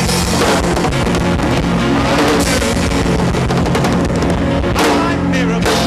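Loud band music with drums and guitar playing steadily between the chants of a church service.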